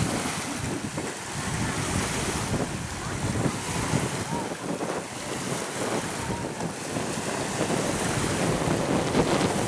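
Steady wind buffeting the microphone, with choppy sea water washing and lapping underneath.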